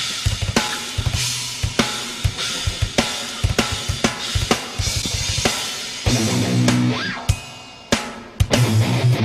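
Rock music with a drum kit playing a steady beat and electric guitar; about seven seconds in, the band thins out and fades briefly, then comes back in with a hard hit near the end.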